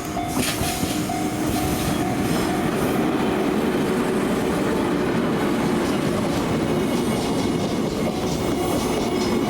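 Passenger train of Izukyu 2100 series cars rolling past with steady wheel-and-rail rumble and some clatter. A level-crossing warning bell rings about twice a second and fades out two to three seconds in.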